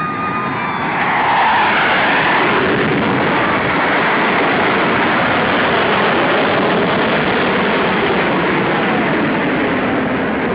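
Fighter jet making a low flyby: a loud, steady jet roar that swells about a second in and holds.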